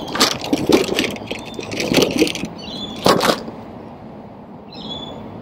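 Irregular thumps and crackles right at the phone's microphone from footsteps on the grass beside it, the loudest a little after three seconds in. Birds chirp briefly near the end.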